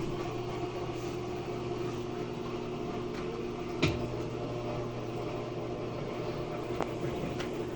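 Mabe top-load washing machine in its spin cycle, the drum turning with a steady motor hum and a sharp click about four seconds in. It runs without knocking, a sign that the spin is working normally.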